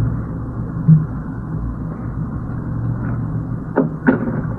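A boat engine running steadily with a low hum, and two sharp knocks close together near the end.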